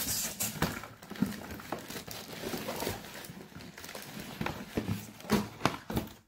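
Bubble wrap crinkling and cardboard rustling as hands pull a shoebox out of a shipping carton, with scattered clicks and light knocks of the box against the carton.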